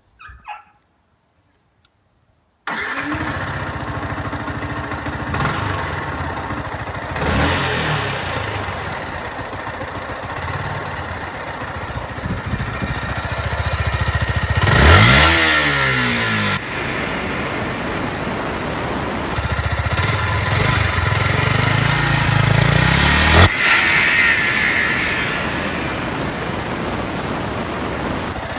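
Yamaha YZF-R125's 125 cc single-cylinder four-stroke engine, fitted with an aftermarket X-Board silencer, starting up about three seconds in and then idling. It is blipped a couple of times, revved up and back down about halfway through, and held at higher revs before dropping back sharply to idle near the end.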